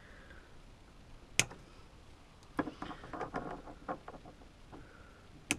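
Pliers and small wiring parts being handled, making scattered clicks and light rattles. A sharp click comes about a second and a half in, a run of smaller clicks in the middle, and another sharp click near the end.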